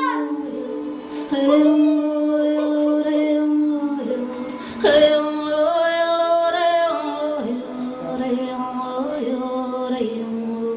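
Music with singing: a voice holds long notes that change pitch every second or two over a steady low held tone.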